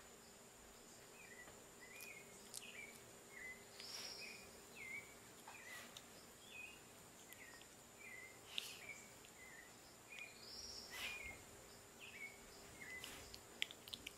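Faint, repeated short high chirps, one or two a second, with two longer, higher squeaky calls about four and eleven seconds in, and a few light clicks.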